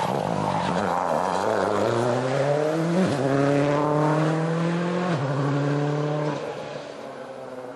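Ford Focus WRC rally car's turbocharged four-cylinder engine accelerating hard away from a bend. The pitch rises, drops sharply at an upshift about three seconds in, climbs again and drops at a second upshift about five seconds in, then fades as the car pulls away.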